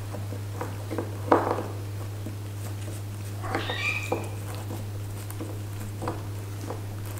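A white British Shorthair Munchkin kitten gives one short high mew about halfway through while play-wrestling a hand, amid soft rustles and claw clicks on a cardboard scratcher, over a steady low hum.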